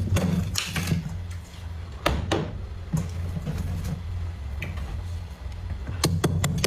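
Thick, crunchy freezer frost being scraped and broken: sharp crunches and scrapes at irregular intervals, with a quick run of them near the end, over a steady low hum.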